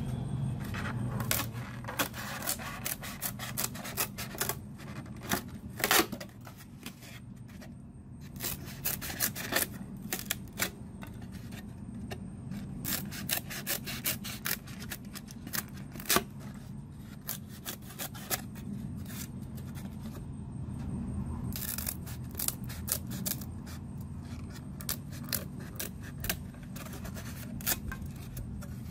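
Scissors cutting through a polystyrene foam food box: irregular snips and scraping as the blades close through the foam. A low steady hum runs underneath.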